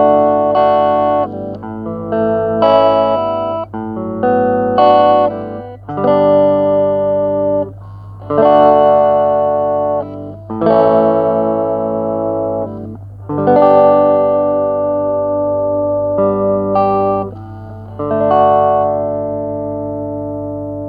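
Jackson JS22 electric guitar on its neck pickup, played through the clean channel of a Joyo MA10E practice amp: chords strummed and let ring, a new chord about every one to two seconds, with a steady low hum underneath.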